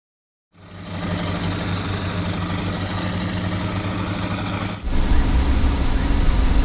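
Armoured infantry fighting vehicle engines running steadily, starting about half a second in. A little under five seconds in, the sound cuts abruptly to a louder, deeper engine sound.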